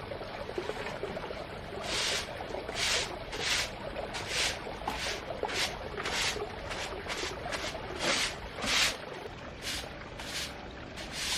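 Repeated short swishing strokes, roughly one or two a second and unevenly spaced, over a steady low hiss.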